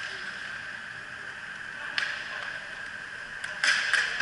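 Inline hockey play with a steady hiss throughout. There is a sharp clack about two seconds in and a quick run of louder clacks near the end, from sticks and puck as two players battle for the puck by the boards.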